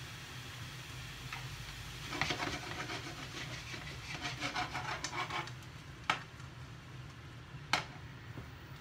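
Long wooden chopsticks stirring bean sprouts and pork in a frying pan, a quick run of scraping and clattering strokes, then two sharp knocks a second and a half apart. A steady low hum runs underneath.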